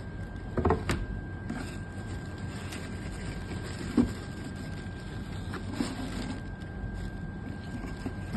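Handling of a shoebox and its packing: a few soft knocks and rustles, over a steady low hum with a faint high steady tone.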